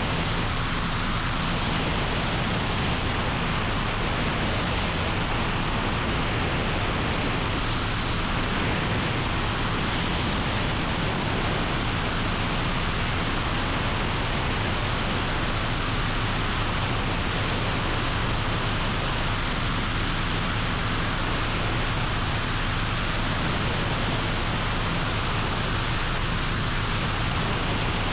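Helicopter in flight: a steady rushing din of rotor and engine noise with a low hum underneath, unchanging in level.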